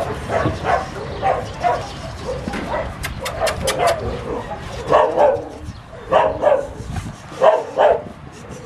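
Puppies yipping and whining, short high calls coming over and over, with a few sharp clicks about three seconds in.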